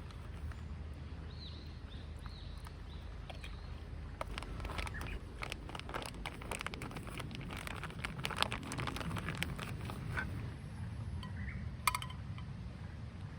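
Camp cooking gear being handled: a run of small clicks, rustles and light knocks, with one sharp metallic clink near the end. A few short high chirps sound in the first few seconds over a steady low outdoor background.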